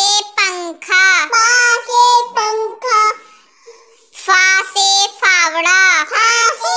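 A child's voice chanting Hindi alphabet lines in a sing-song tune, 'pa se pankha' then 'pha se phavda', with a pause of about a second between the two phrases.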